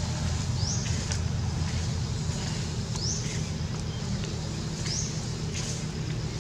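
Steady low engine hum running without a break, with a short high rising chirp repeating every two seconds or so.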